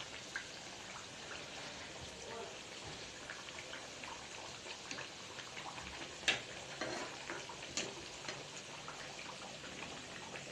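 Sweet potato slices deep-frying in hot oil with sugar for kamote cue: a steady sizzle with scattered small pops and crackles, one sharper pop about six seconds in.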